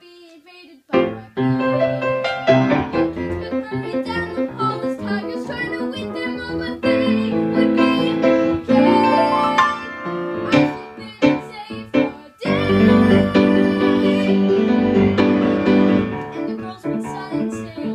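Piano accompaniment of a musical-theatre song, with a short drop right at the start and a louder, fuller passage from about twelve and a half seconds in.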